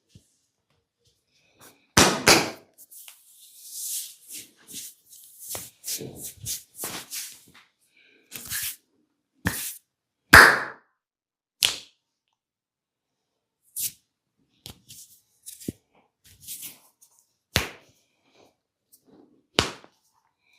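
Hands slapping and striking a person's body in a vigorous massage: a string of sharp slaps a second or a few seconds apart, the loudest near the middle, with softer rubbing and rustling between them.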